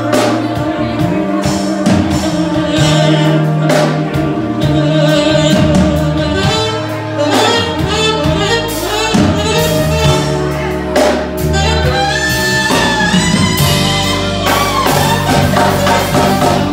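Live band: a tenor saxophone plays the lead melody, with bends and a long held high note about three quarters through, over electric bass guitar and the rest of the band.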